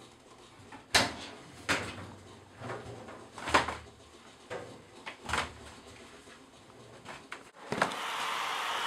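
Clothes dryer door opening and towels being pulled out into a plastic laundry basket: a series of sharp clicks and clunks, the loudest about a second in and again at three and a half seconds. Near the end a steady hiss starts.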